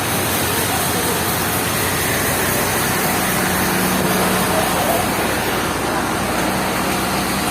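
Sawmill machinery running steadily: a loud, even noise with a faint low hum coming in about two seconds in.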